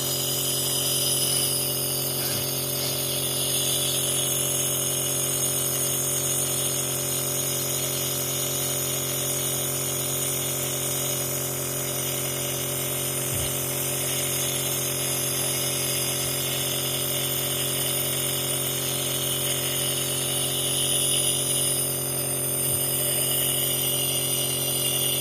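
Compressor nebulizer running steadily, an even electric hum with a hiss of air.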